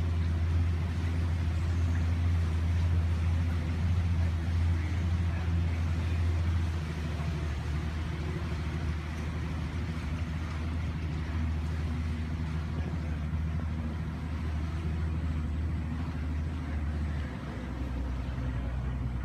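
Boat's outboard motor running steadily at low speed, its low hum dropping a little in level about seven seconds in and again near the end.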